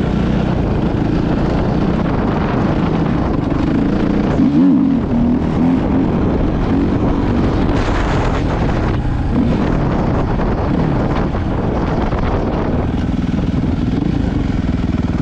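Suzuki 450 dirt bike's single-cylinder four-stroke engine running while ridden, the revs rising and falling several times, loudest about four to five seconds in.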